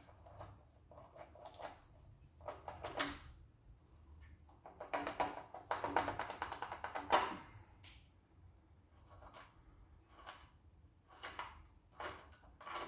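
Hand ratchet wrench clicking in quick runs as bolts are backed out of the engine, with scattered metal clinks of tools and bolts; the longest, fastest run of clicks comes about five to seven seconds in.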